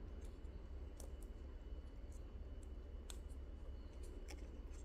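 Faint, scattered clicks and crackles of dry pandanus leaf strips being handled and shifted by hand, over a low steady hum.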